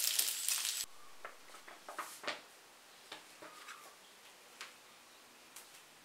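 Pasta frying in a pan, sizzling, cuts off under a second in. Then a quiet stretch with scattered faint clicks and taps.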